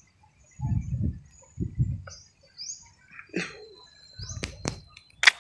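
Small birds chirping a few times, short high rising notes. Dull low thumps come about one and two seconds in, and a few sharp clicks near the end.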